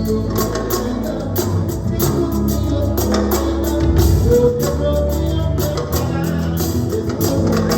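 Live mbalax band music: drums beating steadily under held bass and keyboard notes with guitar, in an instrumental stretch of the song.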